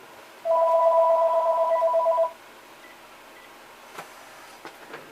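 A telephone ringing in the background: one electronic ring of about two seconds, two trilling tones sounding together.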